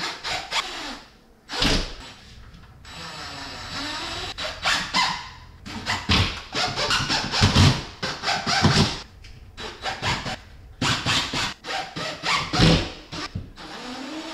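Power drill driving drywall screws through a drywall patch into wooden lath and studs, in a series of short whirring bursts.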